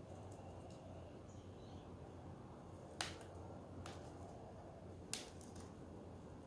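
Two sharp clicks about two seconds apart, with a fainter tap between, from the budgie cage, over a low steady hum.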